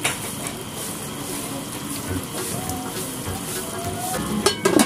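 Bamboo shoots and pork in coconut milk simmering and sizzling in a metal wok. Near the end a spatula stirs, scraping and clinking against the wok a few times.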